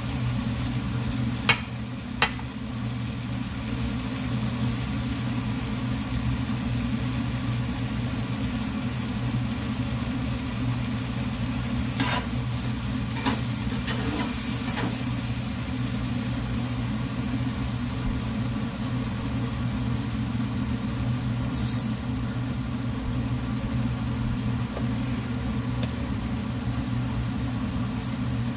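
Tomato-onion masala with paneer sizzling in a hot nonstick frying pan as it is stirred, with a few sharp clinks of the utensil against the pan, twice about a second and a half in and again around the middle. A steady low hum runs underneath.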